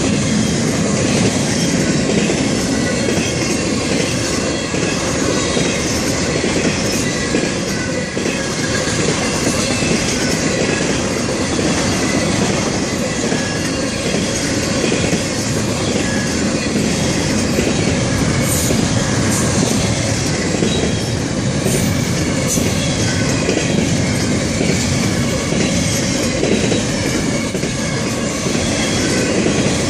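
Double-stack container well cars of a Florida East Coast Railway freight train rolling past close by: a steady rumble and clatter of steel wheels on rail.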